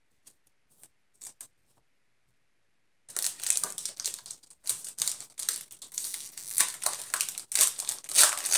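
Foil booster-pack wrapper crinkling and crackling in the hands, starting about three seconds in, after a few faint clicks of card handling.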